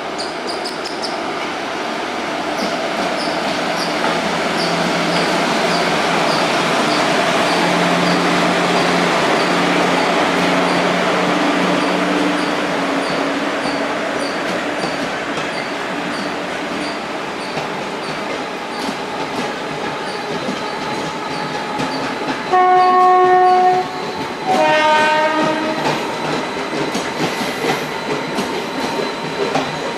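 WAP-4 electric locomotive and Duronto express coaches passing through: the locomotive's hum and the train's rush build to a peak and ease off as the coaches roll by, their wheels clicking evenly over the rail joints. About 23 seconds in, a train horn sounds two loud blasts, the second higher-pitched.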